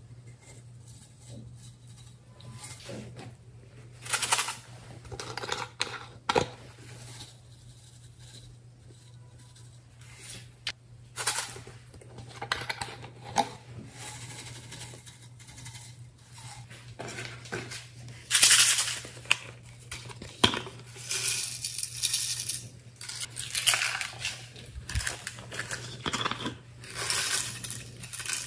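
Glitter and sequins shaken from plastic shaker bottles over slime in a glass dish: irregular rattling and pattering of the small flakes, in separate bouts of shaking, loudest about 18 seconds in.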